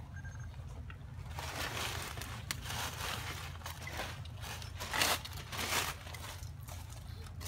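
Dry leaf litter rustling and crunching in a few short bouts, loudest about five seconds in, over a steady low rumble.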